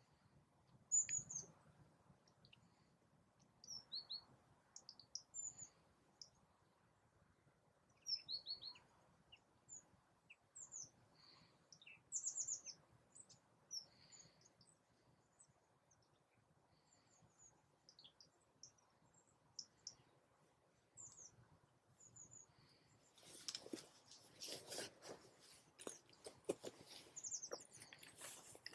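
Small birds chirping: short, scattered high chirps and quick slurred notes over a near-silent background. In the last five or so seconds, a dense crackling rustle comes in and covers them.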